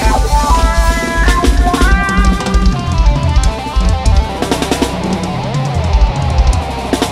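A pagodão band playing live with no singing: a melodic lead line over a drum kit and heavy bass drum beat. About four seconds in, the heavy low beat thins to occasional hits while the melody carries on.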